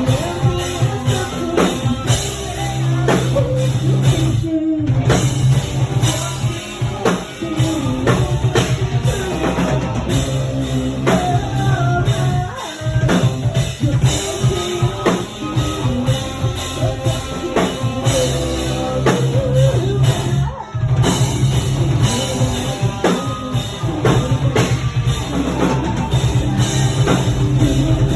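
Metalcore band playing with a full drum kit and guitars, the music dense and loud. It breaks off briefly about five seconds in and again about twenty-one seconds in.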